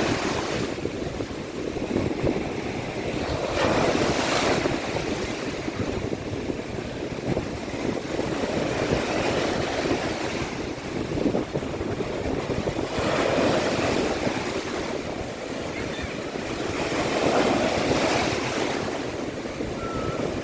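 Waves of the Sea of Azov washing onto the beach, the surf swelling and falling back about every four seconds, with wind rumbling on the microphone.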